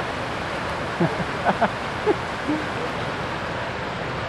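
Steady rush of a boulder-strewn river, water running over rocks as an even hiss. A few brief voice sounds come about a second in.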